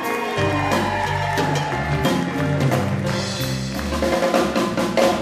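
Live rock band: an electric bass plays a short run of low notes over the drum kit, a brief showcase for the bass player.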